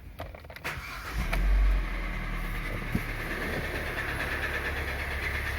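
A few clicks, then the Kia Sportage's 2.0-litre G4KD four-cylinder engine starts about a second in, flares briefly and settles into a steady idle. It runs with piston knock, the known weakness of this engine, from worn, scuffed pistons.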